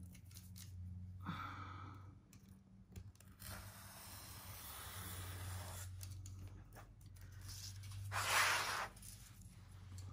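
Craft knife blade scraping and cutting along the paper edge of a wooden panel, trimming off excess paper, with a brief louder rasping scrape about eight seconds in.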